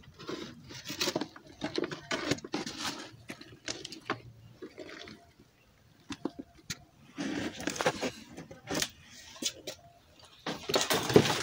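Hands raking and scooping through moist frass and black soldier fly larvae in a plastic basin: irregular rustling and scraping strokes, with a louder cluster near the end.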